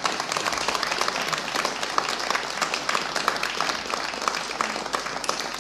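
Audience applauding, a dense run of many separate hand claps.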